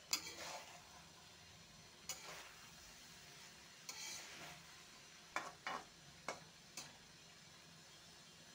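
Long steel spoon stirring and scraping a thick, dry curry in an aluminium kadai, about seven scrapes and clinks against the pan, the first the loudest, with a faint steady sizzle of the hot pan underneath.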